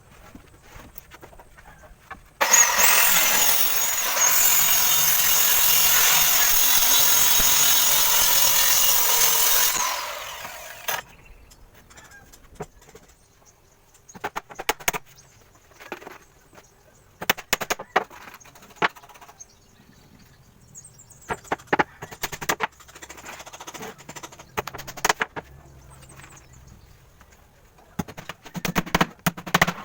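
A power saw cutting 3/4-inch plywood for about seven and a half seconds, starting abruptly and winding down near the ten-second mark. Scattered wooden knocks and clatter follow as the work continues.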